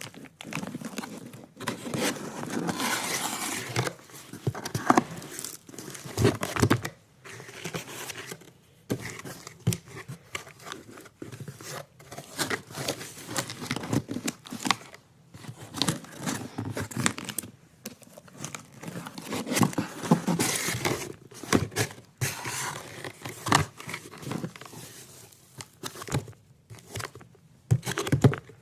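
Packaging being unwrapped: plastic and paper crinkling and tearing in irregular bursts, with small handling clicks and knocks.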